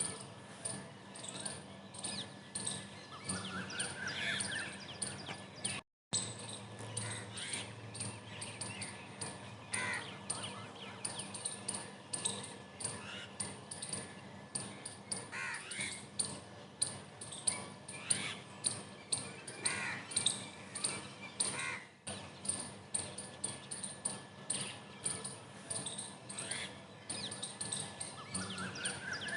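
Birds calling: a constant rapid run of short, high chirps with occasional louder calls that sweep upward in pitch. The sound cuts out for a moment about six seconds in.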